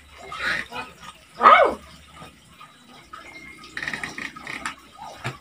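Heavy vinyl-upholstered storage-sofa panels being handled, with rustles, rattles and knocks. About a second and a half in comes one short, loud squeal that falls in pitch.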